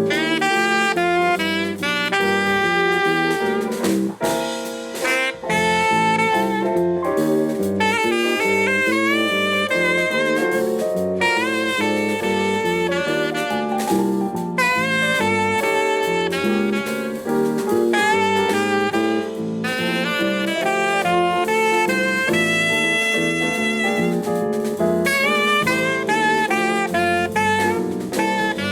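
Live band playing jazz, a saxophone carrying a melody with sliding, bending notes over chords and bass. The playing runs without a break.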